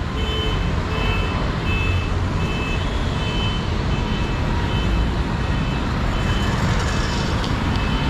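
A reversing alarm on a construction vehicle beeping at a regular pace, a little over once a second, over the steady rumble of heavy road traffic.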